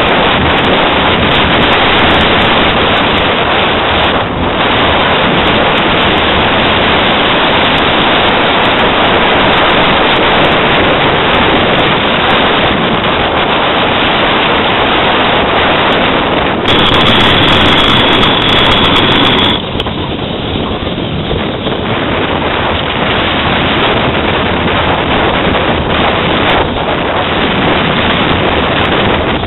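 Heavy wind noise buffeting the microphone and the rumble of small wheels rolling fast on asphalt from an unpowered downhill racing cart. There is no engine. About two-thirds of the way through, a high, steady squeal is heard for about three seconds.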